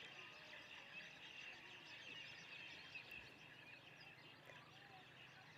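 Near silence, with a faint background of many small birds chirping in the distance.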